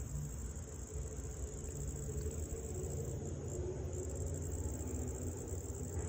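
Steady high-pitched insect chorus over a low rumble.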